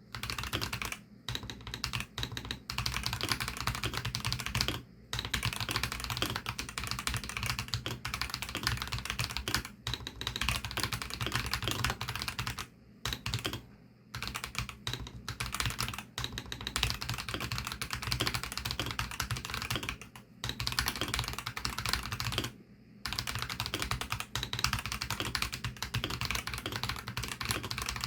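Fast continuous typing on a Varo V87 mechanical keyboard with Varo Orange 53 g tactile switches: a dense run of keystrokes broken by a few short pauses.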